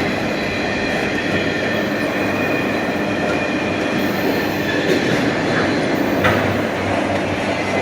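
Union Pacific freight cars rolling past: a steady rumble and rattle of wheels on rail, with a faint high wheel squeal throughout and a sharp clank about six seconds in.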